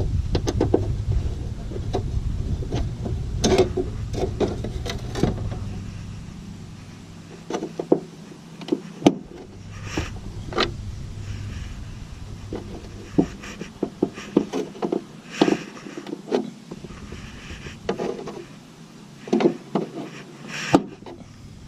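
Scattered light clicks and knocks of a stainless steel license plate bolt and Allen wrench being worked against the plate, on a bolt that feels cross-threaded. A low rumble runs under the first several seconds and fades out.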